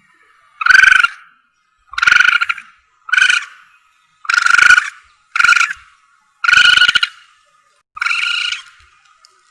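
Civet hunting lure call: seven short, harsh, high-pitched calls repeated at a steady pace of about one a second.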